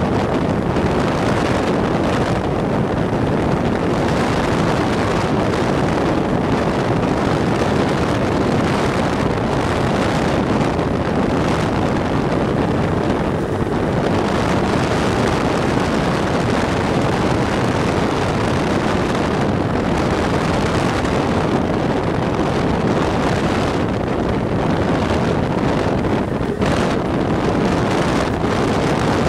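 Steady drone of a Cessna 172's piston engine and propeller, heard from inside the cabin in flight and mixed with the rush of air. This is the airplane descending on its approach to landing.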